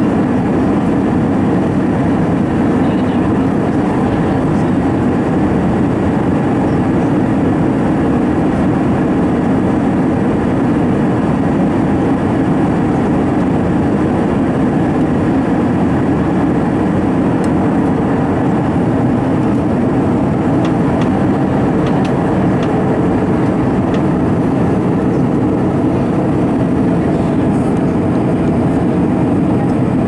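Steady cabin noise of an Airbus A320 on approach, heard from a window seat over the wing: the even rush of airflow and the hum of its CFM56 engines, with no change in level.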